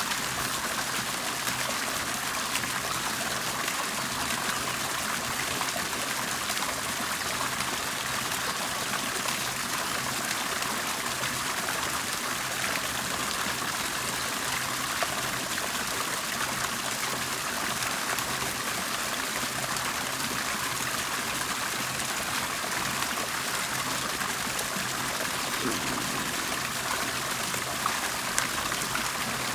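Water bubbling and trickling in a steady, even stream of splashing and gurgling.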